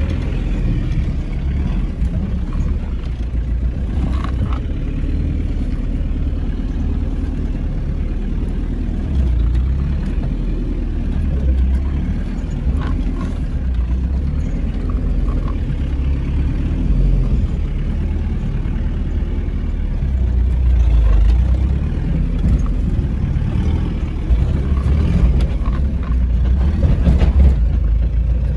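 Land Rover Discovery 300Tdi turbo-diesel engine running steadily with a low rumble, heard from inside the cab as it crawls over a rutted dirt track. A few knocks and rattles come through as the vehicle goes over the ruts.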